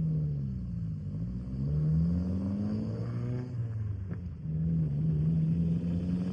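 Car engine pulling through the gears. The note climbs over about a second, drops at a shift, climbs briefly again, then settles into a steady cruise from about halfway through.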